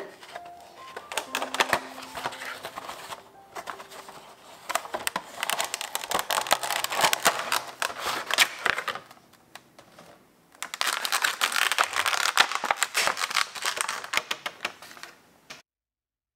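A Funko Pop cardboard window box and its clear plastic insert being handled and opened, with dense crinkling and clicking of plastic and cardboard in two long bouts with a short pause between. The sound cuts off suddenly near the end.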